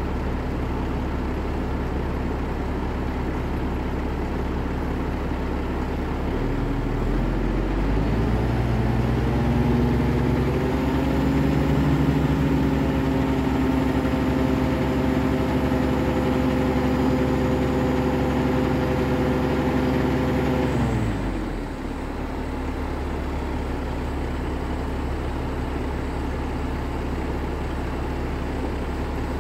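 Renault Premium diesel truck engine idling, then revving up over a few seconds and holding at raised speed before dropping quickly back to idle. The raised revs come while the hooklift arm is being moved, the engine speeding up to drive the hydraulics.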